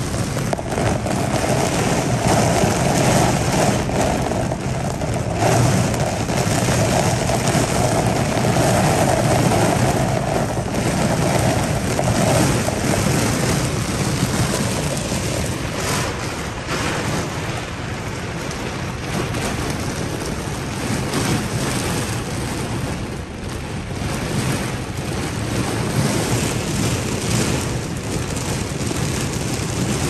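Torrential rain beating on a car's windshield and roof, heard from inside the car as a dense, steady noise.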